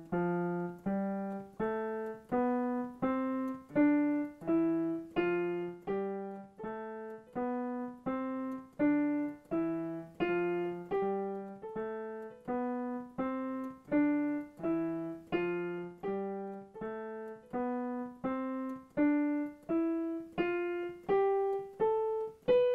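Digital piano playing a steady run of single notes, a little over one a second, stepping upward in two overlaid layers an octave apart that fade in and out and start over. It makes a crude Shepard tone, a pitch that seems to keep climbing without getting higher, and the restart can still be faintly heard.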